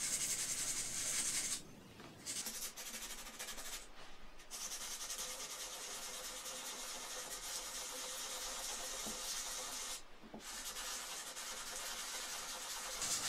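Sandpaper rubbed back and forth over the blued steel of a rifle receiver, a continuous scratchy sanding that roughens the surface for gluing a scope-mount base. It stops briefly about two, four and ten seconds in.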